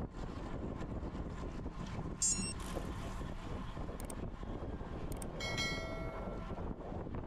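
Wind rushing over an action-camera microphone on a road bike at speed: a steady, dense low rumble. A brief high-pitched squeal about two seconds in is the loudest moment, and a longer ringing tone at several pitches comes in around five and a half seconds.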